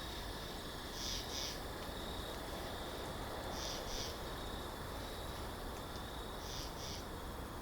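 Night-time nature ambience: a steady high insect trill, with a high two-note chirp repeating about every three seconds over a low, even background hiss.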